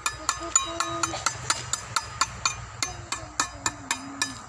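Fast, evenly spaced metallic strikes, about four a second, each ringing briefly.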